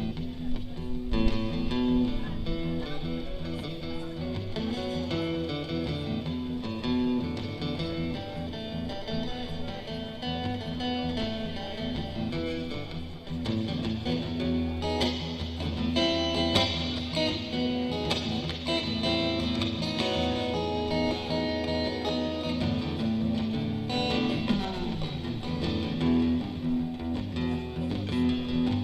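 Live instrumental guitar music with no singing: a picked guitar melody over a steady held low note.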